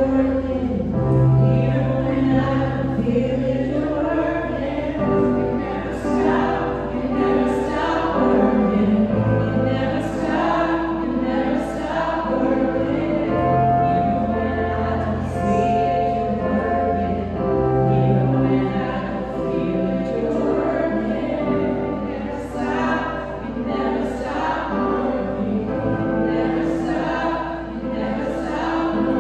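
Two women singing a slow worship song into microphones, accompanied by a Nord Electro stage keyboard playing sustained chords over held bass notes.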